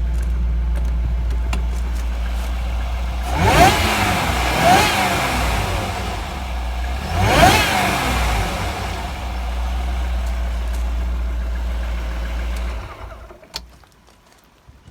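Jaguar XJR's supercharged AJ27 V8 idling, blipped up and back down three times, about three and a half, four and a half and seven and a half seconds in, then switched off near the end. It is running through a freshly fitted aftermarket aluminium intake pipe and K&N air filter.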